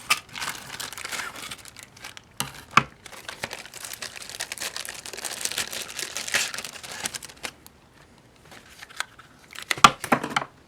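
Plastic packaging bags crinkling as they are handled and opened, with irregular crackling for most of the time. There are a few sharp clicks and taps about two and a half seconds in and again near the end.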